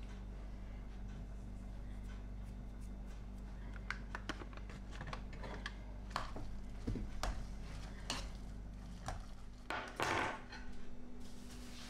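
A metal spoon scraping and clinking against a metal pot while mixing dumpling filling, in scattered irregular knocks and clicks. About ten seconds in comes a brief, louder patch of scraping, over a steady low electrical hum.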